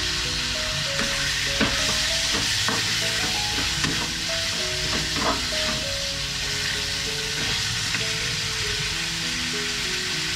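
Pork sizzling steadily as it fries in a metal frying pan, with a few clacks of a utensil against the pan in the first half. Soft background music plays underneath.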